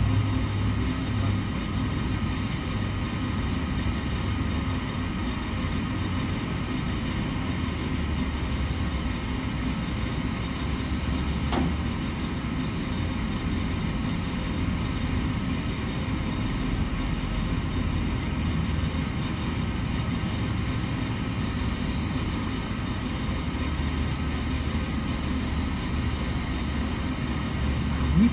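Steady low mechanical hum of running machinery, with a single sharp click about twelve seconds in.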